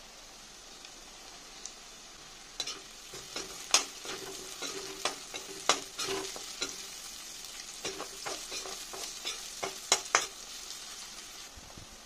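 Chopped onion sizzling in hot oil in a wok. From about two and a half seconds in until near the end, a spatula scrapes and knocks against the pan as the mixture is stirred.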